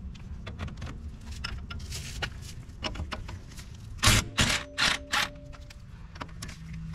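Cordless impact wrench firing in a few short bursts on a suspension bolt, about four seconds in, with a brief motor whine around them. Before that, low handling noise and scattered clicks of the socket and tool.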